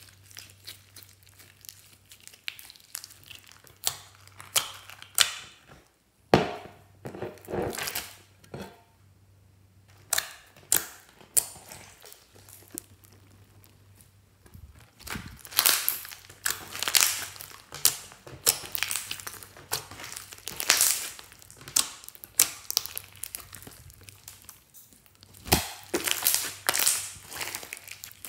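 Hands squeezing, folding and stretching glossy slime mixed with foam beads: sticky crackling and popping in irregular clusters, with brief quieter pauses between handfuls.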